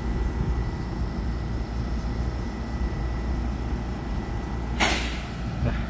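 Steady low rumble of a Taiwan Railway EMU3000 electric multiple unit standing at the platform, with a faint steady whine, broken by one short burst of hiss about five seconds in.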